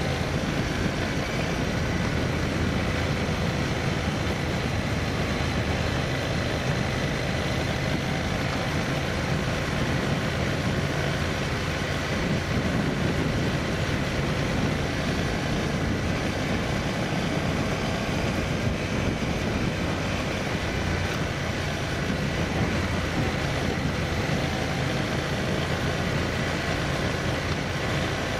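A vehicle moving along a road, its engine, tyre and wind noise running steadily with no rise or fall in speed.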